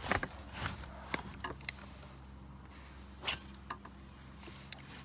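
Scattered light clicks and knocks of fishing tackle and the boat being handled, over a low steady hum; the sharpest clicks come about a second and a half in and near the end.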